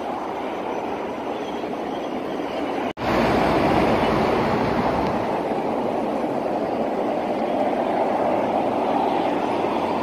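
Steady rush of traffic on a multi-lane expressway, tyre and engine noise blended into a constant hiss. It drops out for an instant about three seconds in and comes back a little louder.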